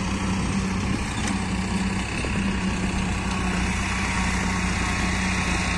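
Farmtrac 6055 tractor's diesel engine running at a steady pitch while it pulls and powers a PTO-driven soil-loading machine.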